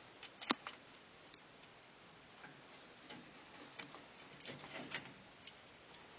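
Faint clicks and rustles of thermostat wires being handled and fitted to a furnace control board's terminals, with one sharp click about half a second in.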